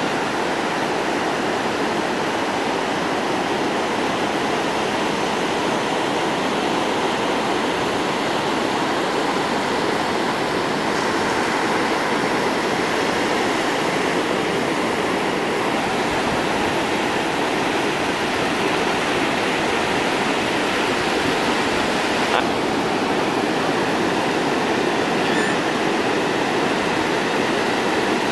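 Ocean surf breaking and washing toward the shore: a steady, unbroken rush of water.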